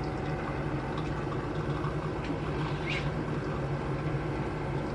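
Steady low mechanical hum of a running kitchen appliance, with a light clink about three seconds in.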